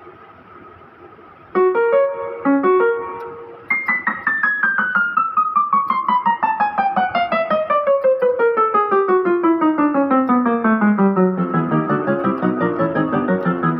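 Casio CTK-6300 electronic keyboard playing a piano voice: a few notes and chords, then from about four seconds in a long, evenly paced run of notes stepping down the keyboard, about four or five a second. The keyboard is making sound again after repair of its no-sound fault.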